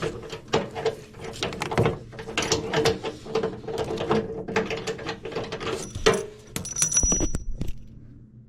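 Metal hand tools clicking and clinking against plumbing fittings, with quick ratchet-like clicks, as the fittings are worked and tightened, over a steady low hum.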